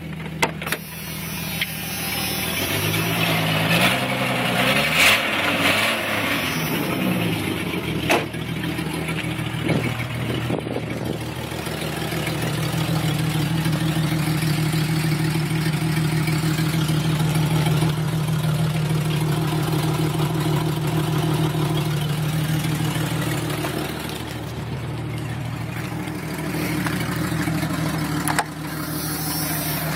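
1996 Jeep Cherokee's 4.0 straight-six running with its exhaust leaking at a broken Y-pipe, and a misfire besides. It is revved up and down a few times in the first several seconds, then settles into a steady idle, with a few sharp clicks along the way.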